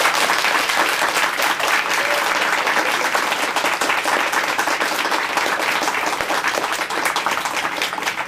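Wedding guests applauding steadily, many hands clapping at once, in greeting for a newly introduced married couple.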